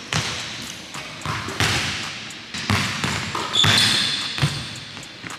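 Basketball bouncing and striking on a hardwood gym floor: sharp echoing thuds, one or two a second. A brief high squeak comes about three and a half seconds in.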